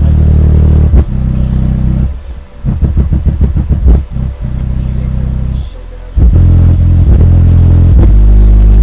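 Audio Legion JAV1X10D2 10-inch subwoofer playing deep bass notes, driven hard at about 490 watts into 1.6 ohms, with the cone moving visibly far. The bass is loud and sustained, with a quick run of short bass hits about three seconds in and brief dips in between.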